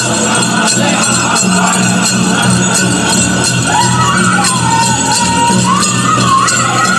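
Powwow drum group singing a chicken dance song in high voices over a steady drumbeat, with the jingling of the dancers' bells.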